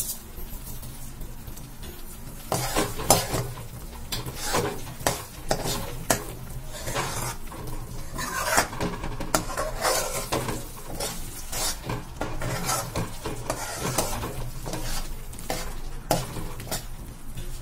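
Steel spoon stirring and scraping a thick mix of grated pumpkin, milk and sugar against a stainless-steel pan as it cooks down, in irregular strokes that start about two and a half seconds in.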